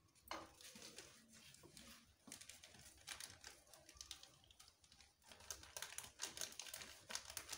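Faint crackling and light clicks of rice being handled at an aluminium pot, getting busier about five seconds in as the next layer of cooked rice is readied over the sugar.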